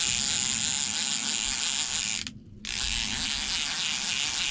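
Fishing reel's drag buzzing steadily as a hooked fish pulls line off, the sign of a fish taking the bait and running; the angler reckons it is a tope. The buzz stops for a moment about halfway through, then starts again.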